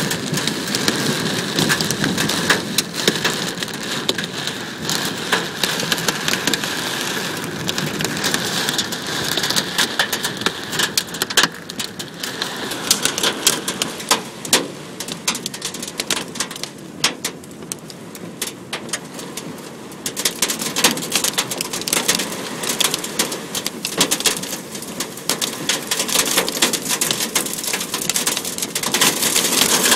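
Dime-size hail and rain pelting a Nissan truck's body and windshield, heard from inside the cab: a dense patter of sharp snaps over a steady hiss of rain. It thins out for a few seconds a little past halfway, then comes on hard again.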